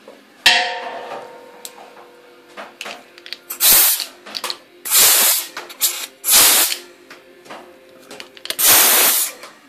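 A metal clank with a short ring about half a second in, then four short blasts of compressed-air hiss, each about half a second long, from the repaired air hose's line being fired off.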